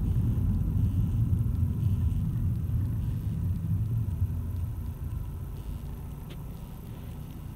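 Low road and engine rumble heard from inside a moving car, dying down over the last few seconds as the car slows to a stop in traffic.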